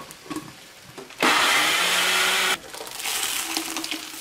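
Electric blender running for about a second and a half, grinding boiled beans with their broth, then cutting off suddenly. Afterwards the blended beans hit a hot clay cazuela and sizzle as they fry.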